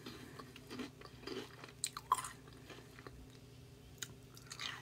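Close-up chewing of cheese-covered Hot Cheetos: soft mouth sounds broken by a few short, crisp crunches, with a new bite about four seconds in.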